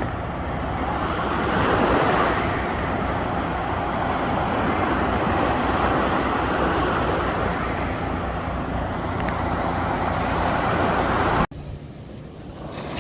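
Ocean surf breaking and washing onto a beach: a steady rushing wash that swells about two seconds in. Near the end it cuts out abruptly and comes back quieter.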